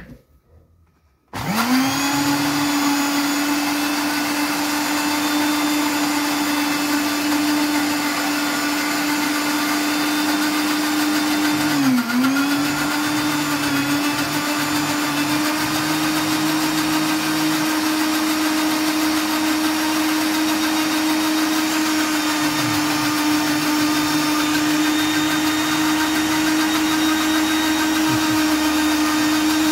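Countertop blender switching on about a second in and running steadily, emulsifying soy milk and olive oil with parsley into a vegan mayonnaise. Its motor pitch dips once briefly near the middle, then settles back.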